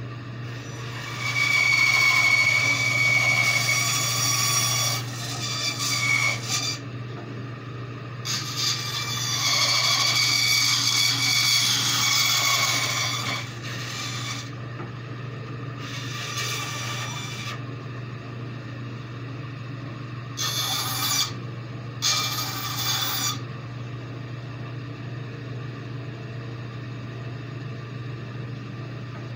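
Bandsaw running with a steady motor hum while its blade cuts through wood in a series of passes: two long cuts of about five seconds each, then several shorter ones, with the saw running free between cuts and for the last several seconds.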